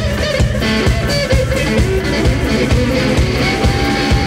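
Live rock band playing loudly: electric guitar over a steady drum beat, with a high note held near the end.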